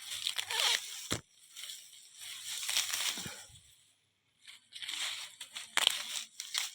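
Grass and weeds being pulled up by hand: irregular rustling and tearing crunches, with a sharp click about a second in and a short pause near the middle.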